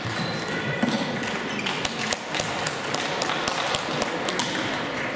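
Table tennis balls clicking irregularly off bats and tables, from the near table and neighbouring ones in the same hall.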